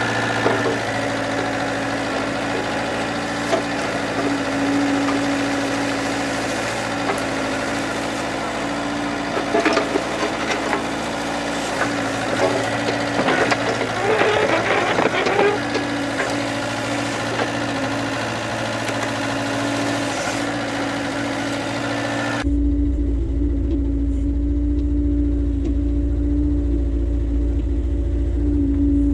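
Mini excavator's diesel engine running steadily while the bucket rakes through weeds and brush, with crackling of plants at times. About 22 seconds in, the sound changes suddenly to a heavier low drone of the engine heard up close.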